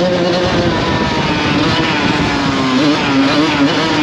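Kawasaki KX100 two-stroke dirt bike engine running under throttle while being ridden. The pitch eases down through the first couple of seconds, then wavers up and down with throttle changes near the end.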